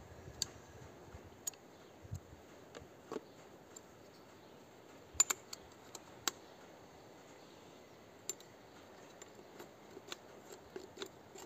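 Scattered light clicks and taps of plastic parts being handled as the oil bowl of a diesel tiller's oil-bath air filter is fitted onto the filter housing; the sharpest are a quick pair about five seconds in and another a second later.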